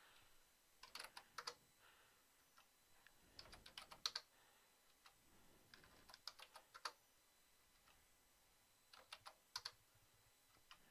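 Faint typing on a computer keyboard: four short bursts of keystrokes with quiet pauses between them.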